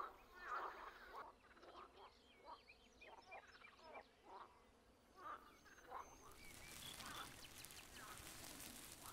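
Faint, repeated short calls of waterfowl, a couple a second, for about the first six seconds. From about six seconds in, a steady faint hiss of outdoor ambience takes over.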